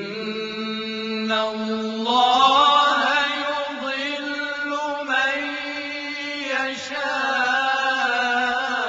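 Male Quran reciters chanting together in melodic tilawa. One long drawn-out phrase is held on a low note, steps up about two seconds in, and then winds through ornamented turns without a break.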